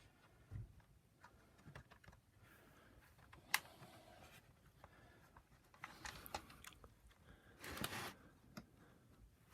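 Faint, scattered clicks and taps of a Torx screwdriver and screws being worked out of a vacuum cleaner power nozzle's plastic housing, with one sharp click about three and a half seconds in and a brief scrape near eight seconds.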